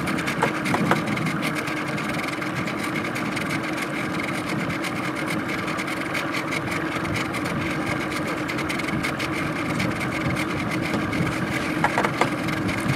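Boat motor running steadily at idle, a constant hum with a few held tones.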